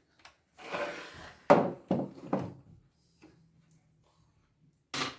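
Handling noises from working on an embroidery machine: a brief rustle, then three sharp knocks about half a second apart, a faint low hum, and a single sharp click near the end.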